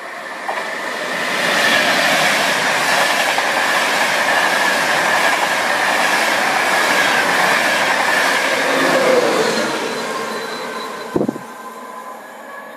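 East Coast electric express train passing through the station at speed. The rush of wheels on rail and air builds over the first couple of seconds, holds loud for several seconds, then fades as the train recedes. A brief sharp thump comes near the end.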